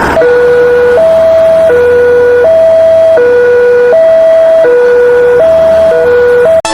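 Two-tone emergency siren alternating steadily between a low and a higher note, each held about three-quarters of a second. It cuts off abruptly near the end.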